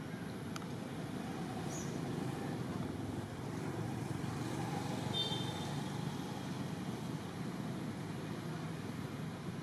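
Steady low outdoor background rumble, with a brief faint high chirp about five seconds in.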